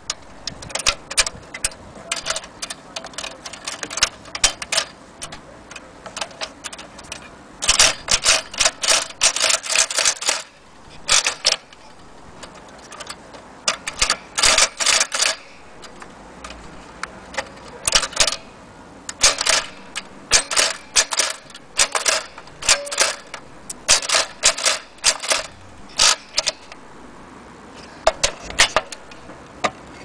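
Lilliput child's toy typewriter being typed on. Its type-bar keystrokes clack in quick irregular runs of several strokes, with short pauses between runs.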